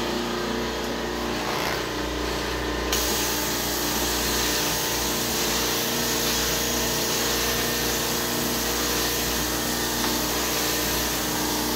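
Carpet steam-cleaning (hot-water extraction) machine running with a steady motor hum. About three seconds in, a loud even hiss starts and keeps on as the cleaning wand sprays and sucks water back up from the carpet.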